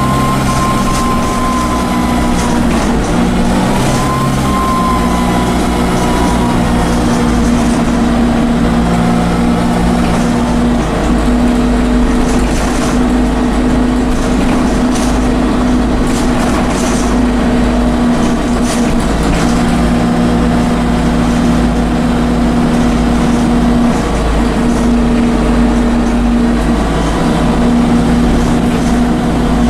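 Dennis Dart bus's Cummins diesel engine running under way with a high turbo whine; the whine dips about two seconds in, rises again a couple of seconds later and then fades under the steady engine drone, with some rattling clicks in the middle. The uploader calls the bus knackered.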